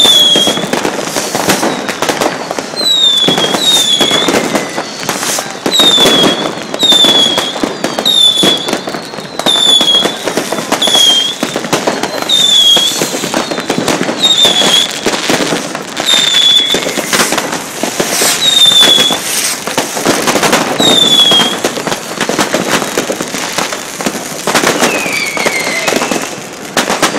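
Many fireworks and firecrackers going off at once: a continuous run of bangs and crackling, with short falling whistles repeating about once a second through most of it.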